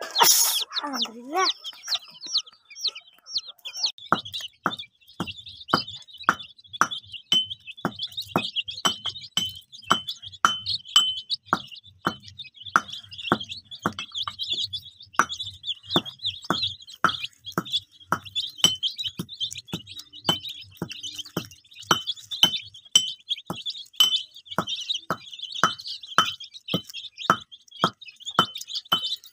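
A brood of desi chicks peeping constantly in high, quick cheeps, with one louder call right at the start. From about four seconds in, sharp taps come about two a second.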